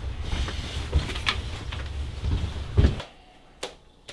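A few knocks and shuffles of a front door and of someone walking in through it, over a steady low outdoor rumble. About three seconds in this gives way suddenly to quiet room tone with a single faint click.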